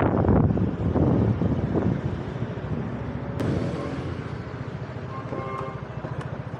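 Street traffic noise: a vehicle running, with wind on the microphone, loudest at the start and fading over the first couple of seconds. A single sharp click comes about three and a half seconds in.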